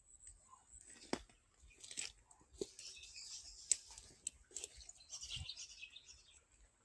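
Footsteps and rustling through grass and dry leaf litter, with scattered crunches and snaps of twigs underfoot.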